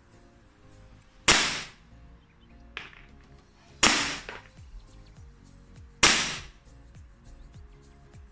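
Armorer Works HX2003 Hi-Capa gas blowback airsoft pistol firing single shots on gas: a sharp crack of shot and slide blowback about every two and a half seconds, three times, with a fourth right at the end.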